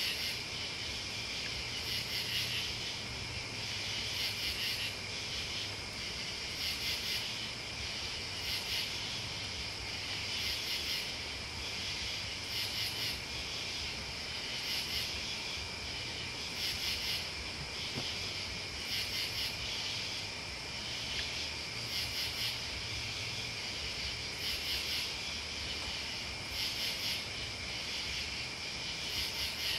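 Crickets and other insects calling in a steady high trill that swells into louder pulses about every two seconds.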